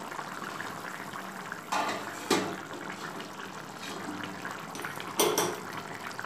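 Fish curry broth bubbling at a steady boil in an open metal kadai, with three sharp knocks about two, two and a half and five seconds in.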